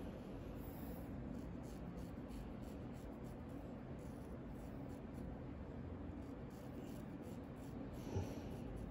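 Straight razor scraping through lathered stubble on a customer's cheek during a face shave, in short repeated strokes with a raspy, gritty sound. A light tap comes near the end.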